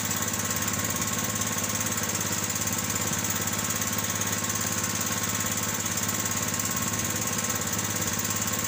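The engine of an outrigger fishing boat (bangka) running steadily, an even, rapid chugging that does not change.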